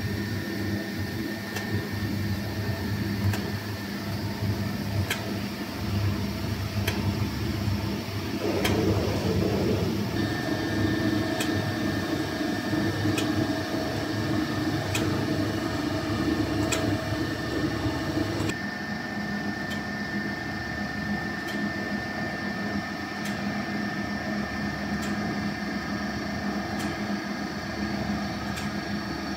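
Horizontal ribbon powder mixer running: its electric gear motor hums steadily while the stainless-steel ribbon agitator turns through the powder in the trough. A light tick repeats about every two seconds, and the hum shifts in tone a few times.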